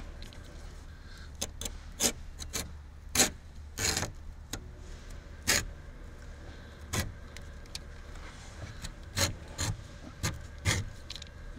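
Knife blade slicing through carpet-style headliner fabric, a dozen or so short rasping strokes at irregular intervals. The blade is starting to pull at the material, a sign that its edge is dulling.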